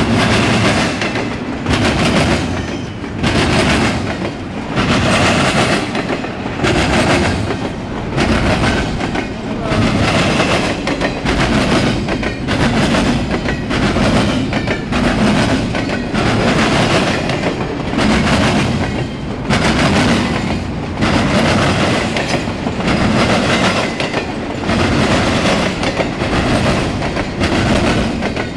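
Double-stack intermodal freight train's container well cars rolling past close by: a loud, continuous rumble and clatter of steel wheels on rail that swells about every second and a half as each set of wheels goes by.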